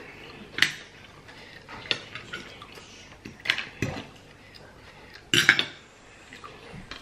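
A metal fork and clam shells clinking against ceramic plates, about five sharp separate clinks spread through the seconds, with a cluster of louder ones about five and a half seconds in.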